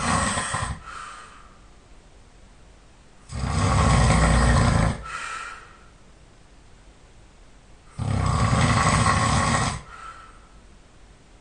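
A man snoring in his sleep: the end of one snore right at the start, then two long snores about four and a half seconds apart, each under two seconds long with a fainter tail after it.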